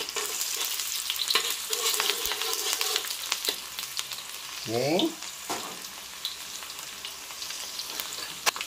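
Sliced red onions sizzling in hot olive oil in a steel wok, stirred with a metal spatula that clicks and scrapes against the pan. A brief voice-like sound about halfway through.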